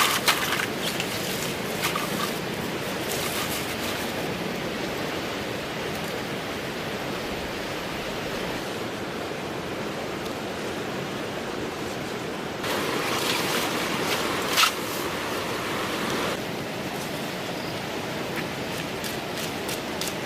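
Steady rush of flowing water. A few sharp clicks come near the start, and about two-thirds through the rush grows louder and brighter for a few seconds, with a couple of sharp knocks.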